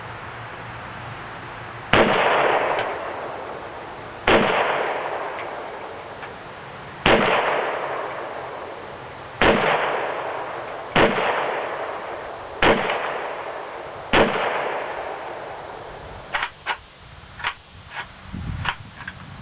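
Seven single rifle shots from a WASR-10/63 AK-pattern rifle firing 7.62x39 steel-case hollow-point ammunition, spaced unevenly about one and a half to three seconds apart, each with a long echoing tail. Near the end the shooting stops and a run of short, sharp clicks and knocks follows.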